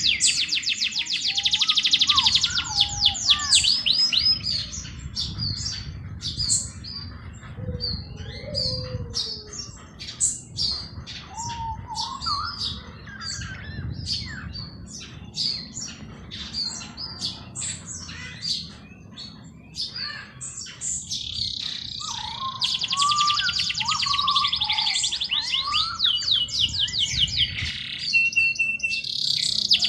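Several songbirds singing and chirping, with a fast, high, rattling trill for the first few seconds that returns about two thirds of the way through, and scattered short chirps and lower warbled phrases between.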